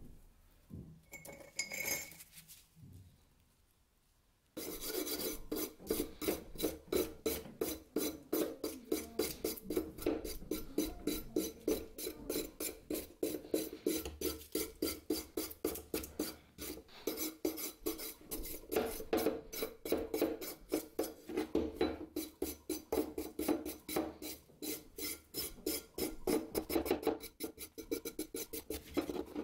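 Small hand wire brush scrubbing surface rust off a rusty steel meat cleaver blade in fast back-and-forth strokes, about four a second, starting about four seconds in. A few light knocks come before the scrubbing starts.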